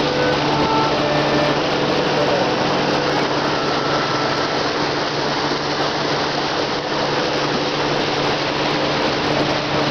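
Tour catamaran's engine running steadily under way, a constant low hum under a steady rushing noise.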